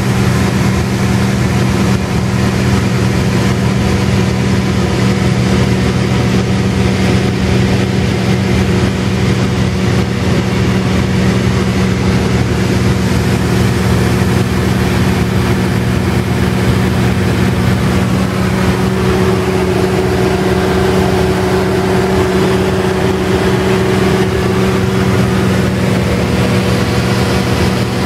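Light aircraft engine and propeller droning steadily in cruise flight, heard from inside the cabin of an E-Racer canard kitplane. A faint higher tone joins the drone a little past the halfway point.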